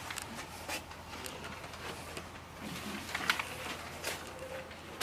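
Crowded classroom of students writing on papers: scattered rustling of paper and small clicks and knocks, over a steady low hum.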